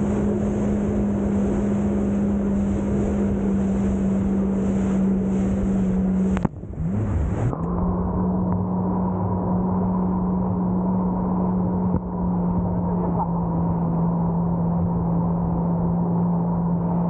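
A jet ski engine running at a steady cruise, one steady drone over rushing water. About six and a half seconds in, the drone dips and drops in pitch for a moment, then picks back up, and from then on it sounds duller and more muffled.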